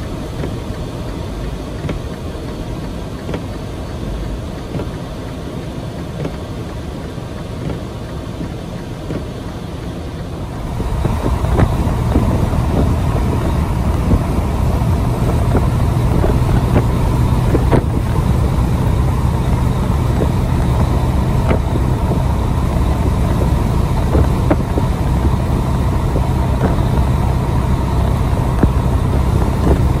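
Steady engine and road noise of a Freightliner Cascadia semi-truck, heard from inside the cab while driving. About ten seconds in it gets louder, with a stronger low hum.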